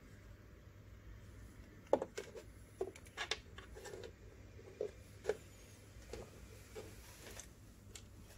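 Smartwatches being set down and shifted on a wooden tabletop: a series of about ten light knocks and taps, starting about two seconds in, over a faint room hum.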